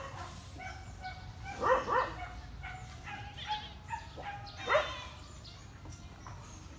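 A dog barking: two quick barks about two seconds in and another about five seconds in.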